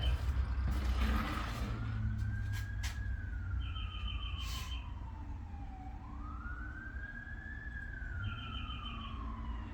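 Emergency-vehicle siren wailing, its pitch rising and then falling slowly, about twice, over a low rumble.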